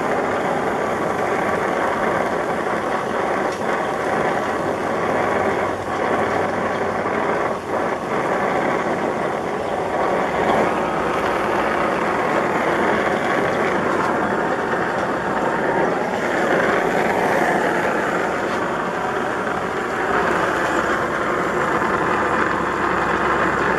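Oxy-fuel brazing torch burning with a steady hiss while heating a joint on galvanized steel wire.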